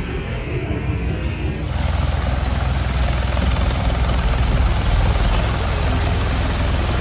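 MV-22 Osprey tiltrotor hovering low overhead: its proprotors and engines make a loud, steady, heavy rumble, setting in about two seconds in.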